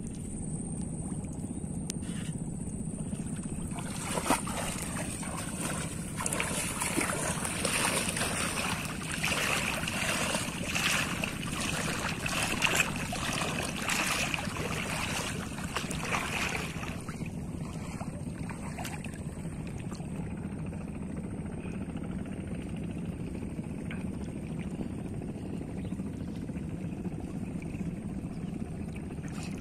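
Water splashing and sloshing as a person wades through shallow floodwater, in irregular strokes from about 4 s in until about 17 s, over a steady low outdoor rumble.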